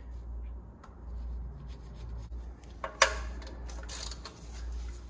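Hand tools handled under a car: one sharp metallic clack about three seconds in and a short scrape about a second later, over a steady low hum.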